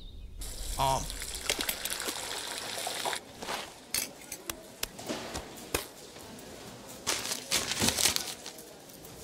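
Cartoon food-preparation sound effects: wet squishing and squelching with scattered sharp slaps and clicks, busiest in the first three seconds and again near the end.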